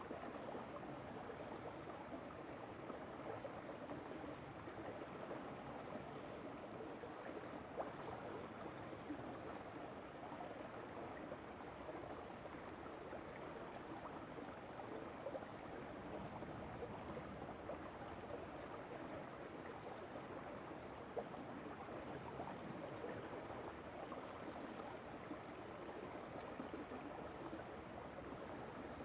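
River water flowing, a steady rushing and gurgling.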